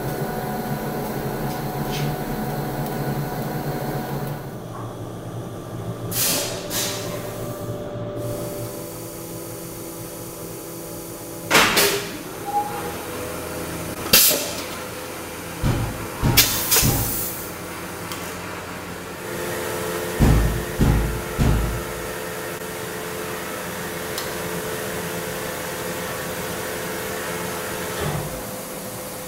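Vinyl record pressing machinery running with a steady hum. It lets out several short, sharp hisses and, past the middle, three heavy low thumps as the press cycles.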